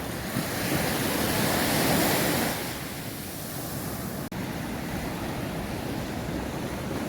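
Small sea waves washing up on a sandy beach at the water's edge, one wave swelling louder about a second in and easing off half a second or so later, with some wind on the microphone. The sound drops out for an instant a little past four seconds.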